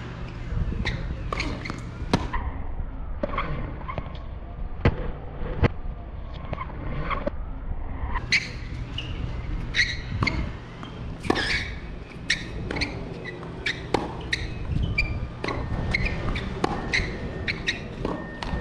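Tennis balls being struck by rackets and bouncing on a hard court during play: a string of sharp knocks, several to a few seconds, over a steady low hum.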